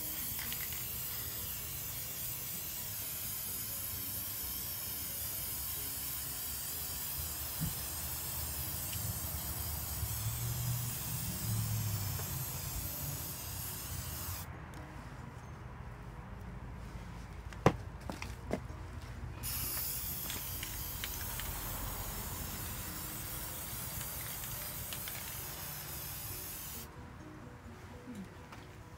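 Aerosol spray-paint can spraying black paint in long, steady hisses. The spray stops for a few seconds a little past halfway, with a sharp click in the pause, then resumes and stops again near the end.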